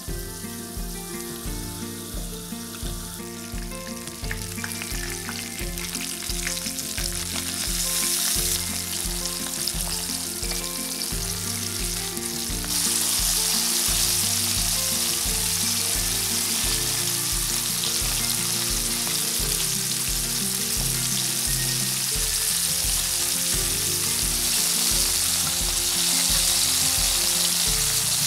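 Flour-dredged galunggong (round scad) sizzling in hot oil in a frying pan, the sizzle growing louder in steps about 4, 8 and 13 seconds in as more fish are laid in. Background music with a steady beat plays underneath.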